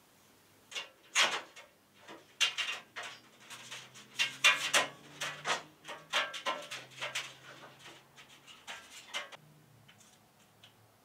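Handling noise: irregular clicks and knocks as grow-light strips, their cords and plug are fitted to a metal-framed shelf unit with glass shelves, starting about a second in and dying away near the end.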